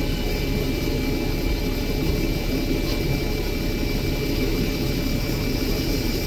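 Alexander Dennis Enviro300 single-deck bus idling at the stop with its doors open: a steady diesel engine rumble with a thin, steady high whine above it.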